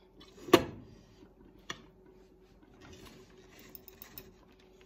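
A metal fork and a ceramic plate clinking, with one sharp clink about half a second in and a lighter one about a second later. Faint scraping follows as shredded chicken is pushed off the plate into the pot.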